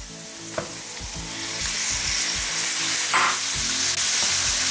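Minced meat sizzling as it drops into hot oil with sautéed onions in a frying pan and is pushed about with a wooden spoon. The sizzle grows louder about halfway through and again near the end as more of the meat hits the oil.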